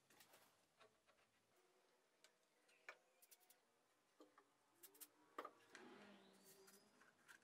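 Near silence, with faint scattered taps and clicks of PVC pipe pieces and a plastic bottle being handled on a wooden table, the sharpest about three and five and a half seconds in.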